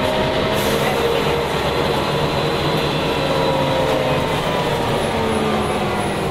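Volvo B10L bus's rear-mounted Volvo DH10A 9.6-litre six-cylinder turbo diesel and ZF automatic drivetrain running under way, heard from inside the cabin: a loud, steady drone with a whine whose pitch rises and falls a little.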